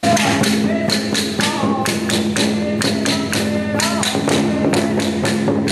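Temple ritual percussion music: rapid drum and cymbal strikes, about three to four a second, over a steady low drone, with a wavering melody line above.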